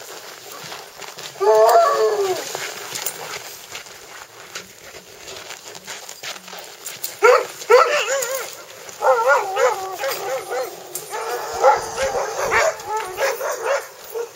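Sled dogs in harness whining and yowling in wavering, high-pitched cries: one burst about two seconds in, then a run of cries from about seven seconds on, nearly to the end.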